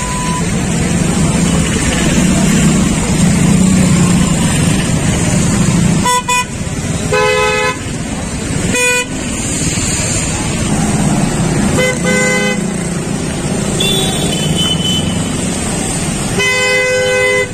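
Steady road traffic on a rain-wet street, with car horns honking about five times: short toots around the middle and a longer blast near the end.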